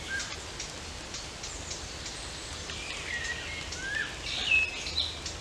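Steady rain with drops ticking on nearby surfaces, while small birds give several short chirps and whistles, the loudest near the end.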